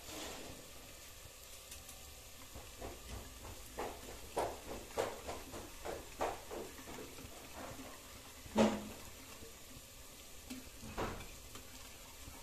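Small wire whisk mixing spice powder and water into a paste in a bowl: a run of quick scraping clicks against the bowl, then a louder single knock a little past the middle and another near the end.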